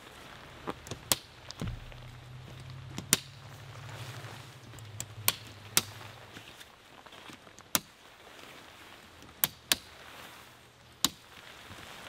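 Sharp plastic clicks, about nine scattered irregularly, as tent clips are snapped onto the tent poles, over a faint steady hiss of light rain. A low hum runs from about two seconds in to about six seconds in.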